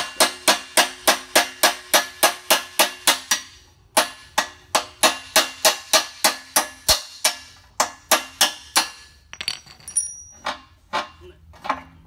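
Hammer striking a steel punch in quick, even blows, about five a second, each with a short metallic ring, driving the wheel axle out of a pallet jack fork. The blows pause briefly just before the four-second mark and again for about a second and a half near the end, with a few lighter clicks, before the hammering resumes.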